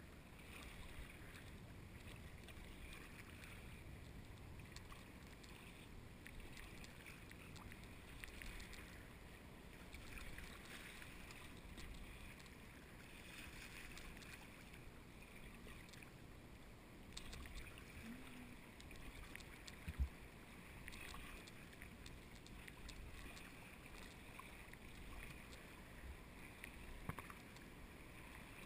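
Faint splashing and lapping of water as a narrow wooden paddle dips into the sea on alternating strokes beside a sea kayak, swelling about every two seconds. One sharp knock about two-thirds of the way through.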